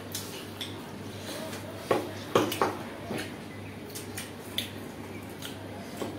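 Clinks and scrapes of eating by hand from steel plates, with a cluster of louder clinks about two seconds in, over a low steady hum.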